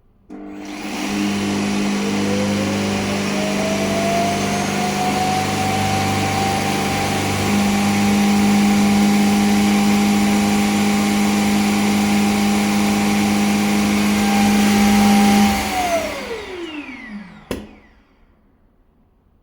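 Shark robot vacuum's self-emptying base running its suction motor to pull the debris out of the robot's dustbin. A whine rises over the first few seconds and then holds steady for about fifteen seconds. It winds down with a falling pitch, and a single sharp click follows near the end.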